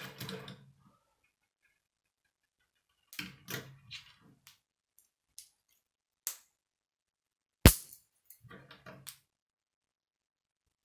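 K'nex plastic pieces clicking and rattling as connectors and rods are handled and snapped together, in short scattered bursts, with one much louder sharp snap about three-quarters of the way through.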